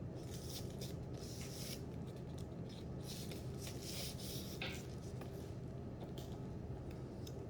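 Hands handling a clutch pouch: intermittent rustling and rubbing in short scratchy strokes, over a steady low hum.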